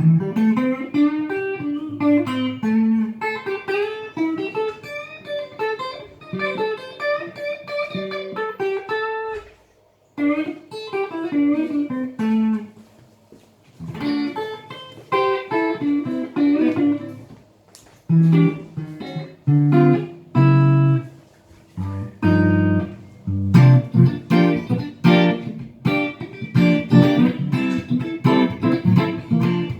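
Ibanez Artcore archtop electric guitar played solo: single-note melodic runs broken by short pauses, turning to denser plucked chords in the last third.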